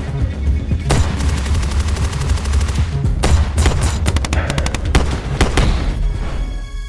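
Gunfire in a shootout: a rapid burst of automatic fire about a second in, then single shots about half a second apart, over a low rumble.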